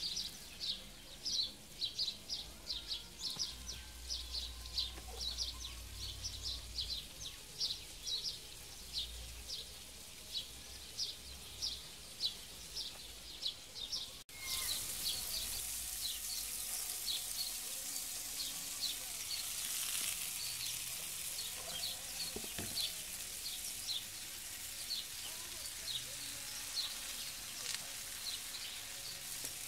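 A bird chirping over and over, about two short high chirps a second. After a sudden break about halfway through, sausages sizzle in a frying pan over a wood fire, and the chirping carries on behind the sizzle.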